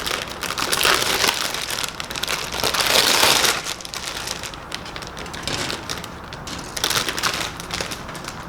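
Plastic parts bag crinkling and rustling as it is opened and handled. The crinkling is loudest for the first three and a half seconds, then softer, with another burst about seven seconds in.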